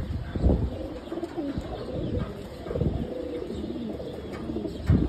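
Male domestic pigeons cooing, several low coos that rise and fall, with a thump near the end.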